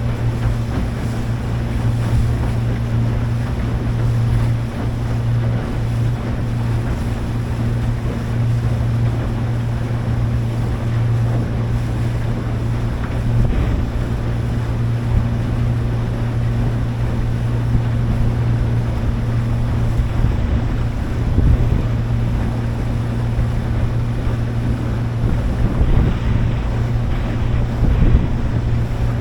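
Motorboat engine running at a steady speed, a constant low drone, with wind on the microphone and water rushing past.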